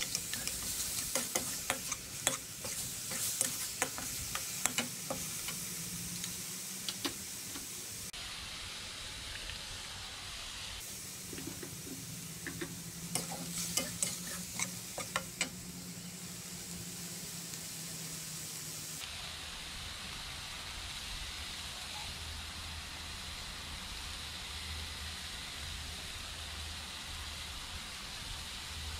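Minced meat and chillies sizzling in a hot metal wok, with a metal spatula scraping and clinking against the pan as the food is stirred through the first half. Later only a steady sizzle remains.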